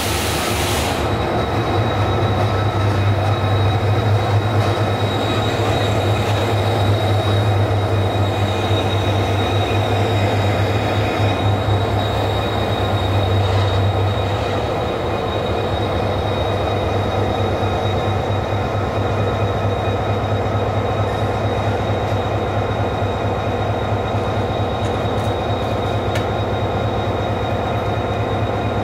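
Train running slowly through a station, heard from on board: a steady low rumble of wheels and running gear with a thin, steady high tone over it. The low rumble eases about halfway through.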